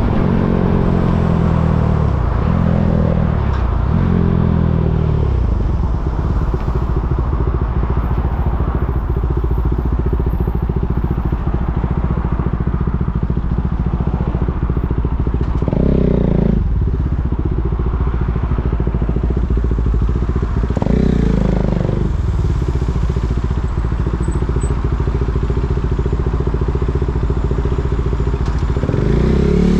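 KTM Duke 390's single-cylinder engine in slow traffic. The revs fall in steps over the first few seconds, then it runs low and steady, with short bursts of throttle about sixteen and twenty-one seconds in and again near the end.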